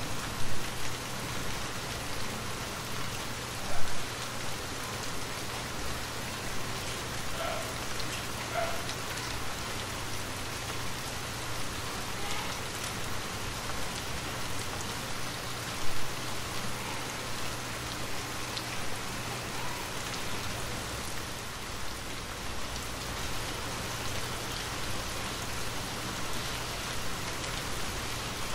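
Steady rain falling, an even hiss of many drops, with a few louder spatters, the biggest about four seconds in and another about sixteen seconds in.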